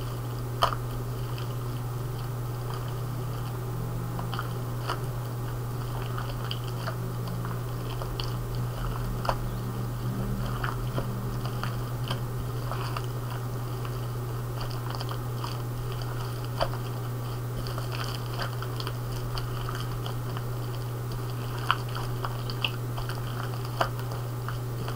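Green slime being kneaded and folded by hand, giving scattered small clicks and crackly pops over a steady low hum.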